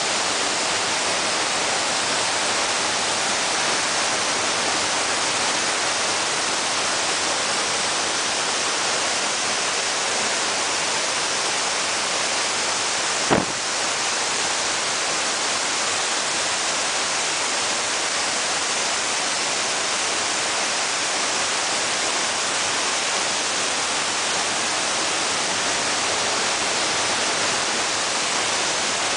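Steady rush of a fast-flowing creek running high and muddy, with one sharp knock about halfway through.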